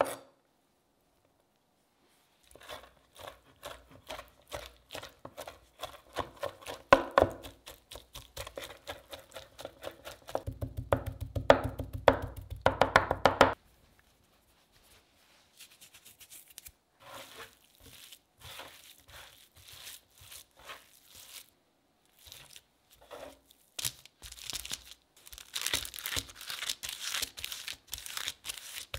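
Kitchen knife rapidly chopping and mincing raw beef and bacon on a plastic cutting board: a fast run of strokes that gets denser and louder before stopping about halfway through. Sparse light knocks follow, then parchment paper crinkling and rustling near the end as a burger patty is pressed out on it.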